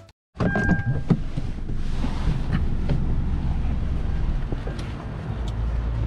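Outdoor wind buffeting the microphone over a steady low rumble, with a short beep and a few knocks in the first second.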